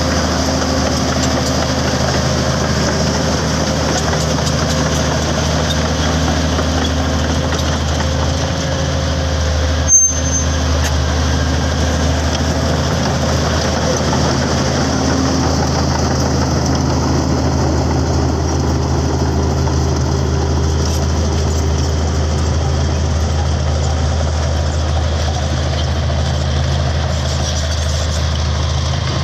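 Komatsu D65P bulldozer's diesel engine running steadily, with a single sharp click about ten seconds in.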